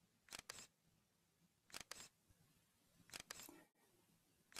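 Faint camera-shutter clicks from the eMotion 2 flight software, each marking a photo taken by the simulated eBee's onboard camera. A double click repeats about every one and a half seconds.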